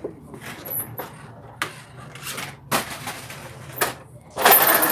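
Toy cars knocking and clattering a few times as they are handled, then a louder, longer rattle near the end.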